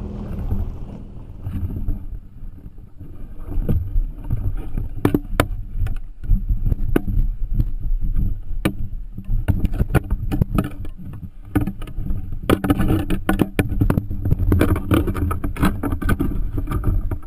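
Low rumble of wind and boat motion on the microphone of a camera on a small boat, with frequent sharp knocks and clatter, thickest about three-quarters of the way through.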